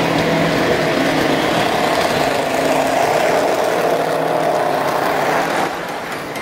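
Electric model train running past close by: a steady rumble of the motors and wheels on the track, with a faint hum. It drops in level after about five and a half seconds as the locomotives go by and the freight cars follow.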